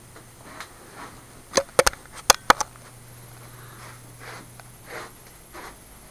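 Handling noise from a handheld camera being moved about: a quick run of sharp clicks and knocks about a second and a half in, with softer breathy sounds before and after.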